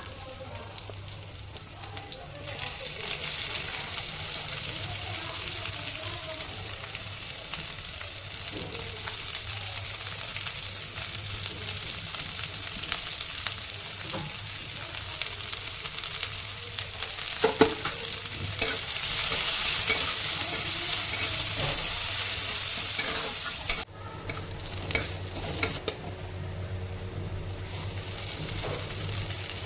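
Food sizzling as it fries in a pan and is stirred, with a few sharp clinks of the utensil against the pan. The sizzle picks up about two and a half seconds in, is loudest for a few seconds about two-thirds of the way through, drops off abruptly, then carries on more quietly.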